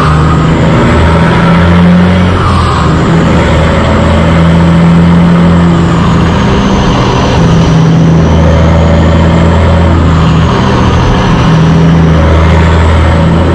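Diesel engine of a heavy truck hauling a lowboy, heard close up. It runs steadily under load, its pitch rising and falling a little as the truck moves through traffic, over road noise.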